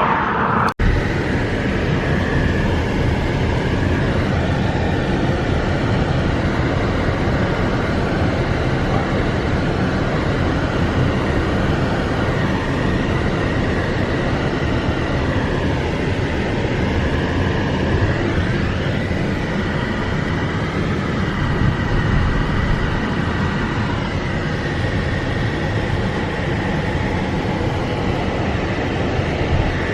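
Steady, loud rushing and rumbling noise with no clear rhythm or pitch. It briefly drops out under a second in.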